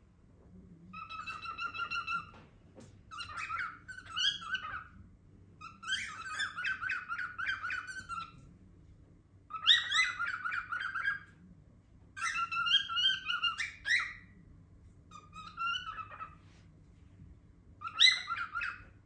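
Pet cockatiel making loud, repeated warbling calls in about seven phrases, each one to two seconds long with short pauses between. The owner wonders whether it is trying to say a word.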